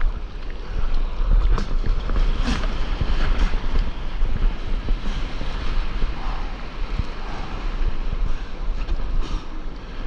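Foamy whitewater rushing and splashing around a stand-up paddleboard, with wind buffeting a microphone close to the water.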